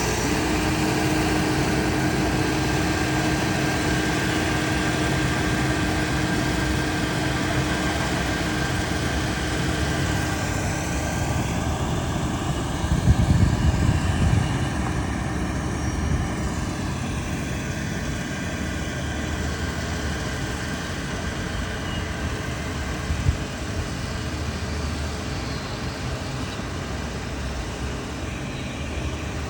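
Combine harvester's engine and machinery running steadily, with a steady whine that fades out about halfway through as the machine's pitch shifts, and a short knock a little later.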